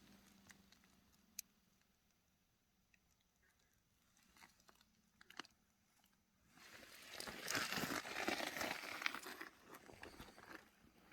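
A few faint clicks, then crunching and crinkling noises for about four seconds starting some six seconds in.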